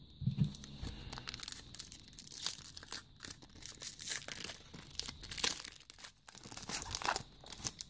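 Foil wrapper of a trading-card pack crinkling and tearing as it is opened by hand, with dense irregular crackles throughout.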